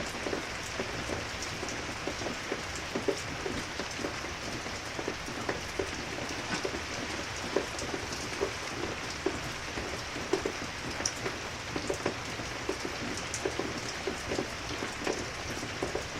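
Steady pouring rain: an even hiss with many small, sharp drop ticks scattered through it.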